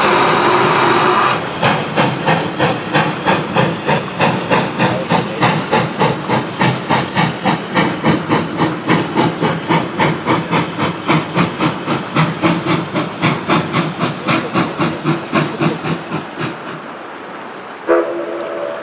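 Baldwin 2-8-0 narrow-gauge steam locomotive working away under load: a steady hiss of steam from the open cylinder cocks, then, after about a second, even exhaust chuffs about three a second that fade as it goes away. Near the end, one short blast of its steam whistle.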